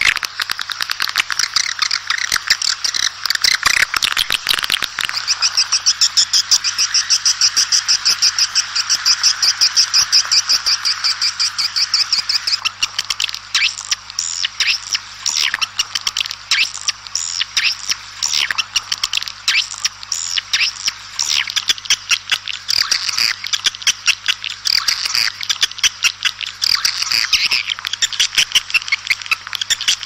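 Edible-nest swiftlets calling as a flock: a dense, continuous twittering of rapid high chirps, which loosens into more separate chirps about halfway. These are the swiftlet calls that are played to call a flock in to nest.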